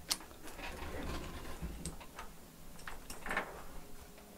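Faint handling noise on a workbench: light, irregular clicks and taps as a laptop logic board is picked up and moved, with a short rustle about three seconds in.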